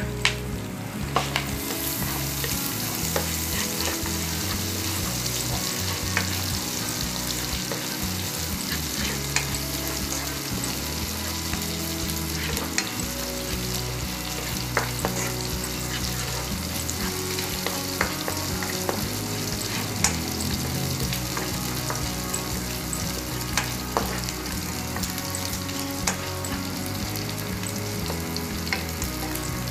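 Minced garlic sizzling steadily as it fries in hot fat in a nonstick pan, stirred with a spatula, with a scattering of sharp clicks as the spatula knocks against the pan.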